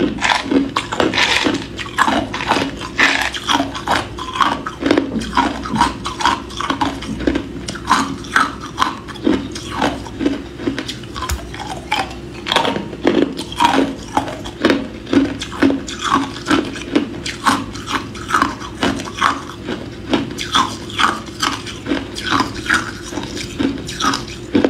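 Hard clear ice cubes crunched between the teeth close to the microphone: a steady run of sharp cracking crunches, about two a second.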